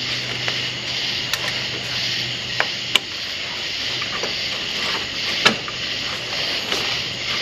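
Scattered light clicks and knocks of hand tools and metal parts being handled in a truck's engine bay, the sharpest about three and five and a half seconds in, over a steady background hiss and low hum.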